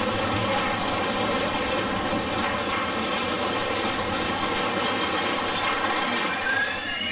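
Mine-train roller coaster running along its track, heard from on board as a steady running noise. Near the end a high, gliding call begins.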